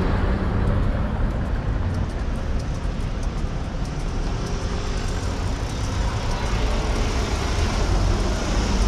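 Steady rush of road traffic and wind noise heard from a moving bicycle, with no single sound standing out.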